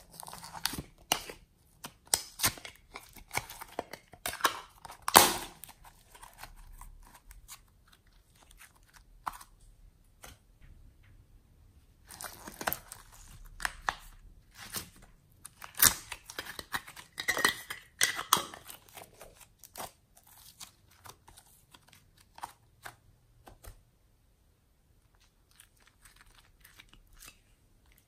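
Glossy slime being peeled and stretched out of small plastic containers by hand: sticky tearing and crackling sounds in irregular bursts, loudest about five seconds in.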